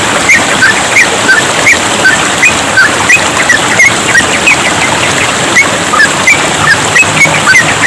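Yellow-vented bulbuls (trucukan) singing a fast, continuous run of short chirped notes, several a second, over the steady hiss of trickling water.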